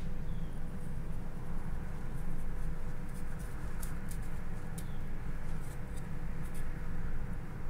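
A long knife blade shaving thin petals from a raw carrot held in the hand: a series of faint, crisp scraping cuts, most of them from about three to seven seconds in, over a steady low hum.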